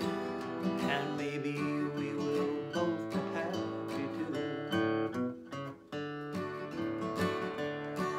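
Cutaway acoustic guitar strummed in a steady country rhythm as an instrumental break, with a short let-up in the strumming about five and a half seconds in before it picks up again.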